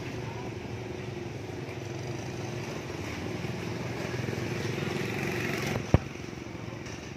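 Motor scooter engine running steadily at close range, with street traffic noise; a single sharp knock about six seconds in.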